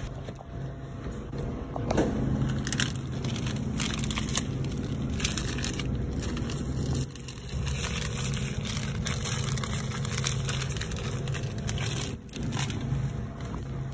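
Rattling and crackling handling noise from a wire shopping cart and plastic-wrapped deli-meat packages, over a steady low hum.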